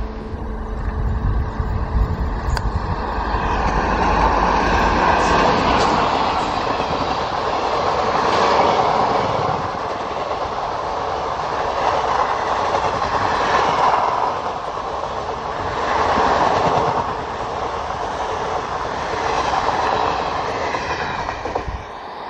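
An Indian Railways express passing close by at speed. The WAP-4 electric locomotive goes by with a deep rumble in the first few seconds. Then its ICF passenger coaches follow with a loud, steady rushing clatter of wheels on rail, swelling and easing in waves, which drops away near the end as the train draws off.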